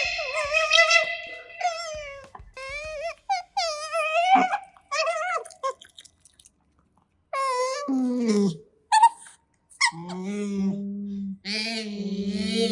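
Asian small-clawed otters giving a run of short, high squeaky calls that bend in pitch: the 'nyam-nyam' noises they make while eating. A longer falling call comes a little past the middle. Near the end a steady low music hum comes in.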